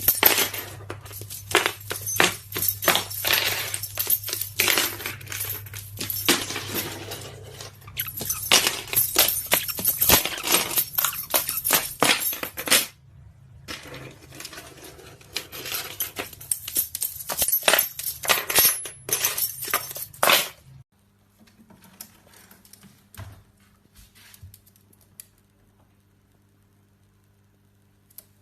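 Rapid clinking and rattling of small hard objects, with a short break about halfway. It stops about twenty seconds in, leaving only faint scattered clicks.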